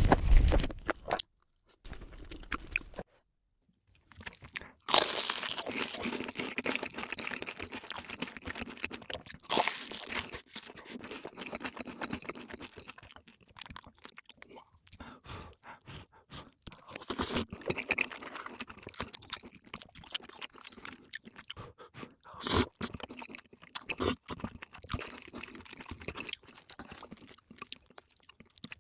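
Close-miked eating: crisp crunching bites and chewing, with a brief pause a few seconds in and several louder sharp crunches scattered through.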